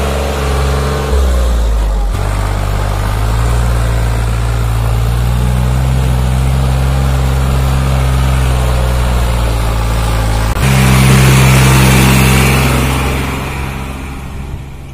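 New Holland 3600-2 tractor's three-cylinder diesel engine running under heavy load as it pulls a fully loaded trolley up a steep grade, with a steady note that shifts twice in the first two seconds. About ten and a half seconds in it turns abruptly louder and closer as the tractor passes, then fades away near the end.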